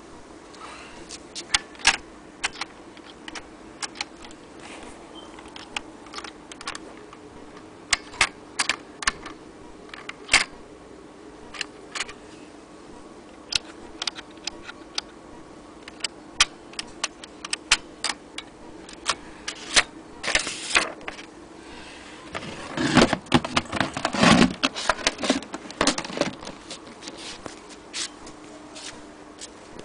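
Good Companion 3 manual typewriter keys striking one at a time, an uneven run of sharp clacks with pauses. About three quarters of the way through comes a denser burst of rattling mechanical clatter, which is the loudest part.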